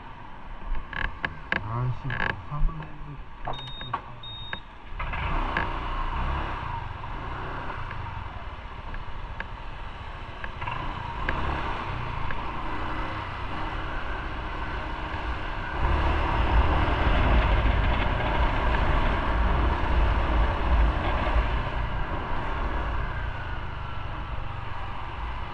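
Motorcycle riding through town streets, its engine running under a steady rumble of road and wind noise on the camera's microphone. A few sharp clicks and two short high beeps come in the first seconds, the bike pulls away about five seconds in, and the rumble grows louder about sixteen seconds in.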